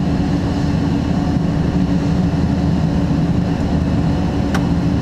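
Ladder truck's engine and aerial hydraulics running with a steady drone while the aerial bucket is lowered. A single short click comes near the end.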